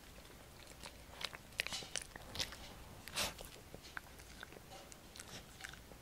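Small poodle chewing a crunchy air-fried tofu treat: a scatter of short crisp crunches and mouth clicks, the loudest a little past three seconds in.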